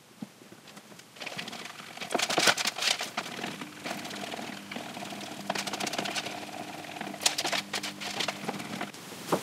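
Clicks and knocks of epoxy resin and hardener dispensing pumps and a plastic mixing cup being handled, then a stick scraping and tapping in the cup as the unthickened epoxy is stirred. A steady low hum sets in a few seconds in and cuts off just before the end.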